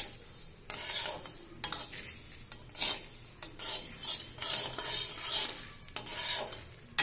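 A flat metal spatula scraping around a dry metal kadhai in repeated strokes, stirring whole spices as they dry-roast without oil. The coriander, cumin and mustard seeds and peppercorns rattle and scrape over the metal.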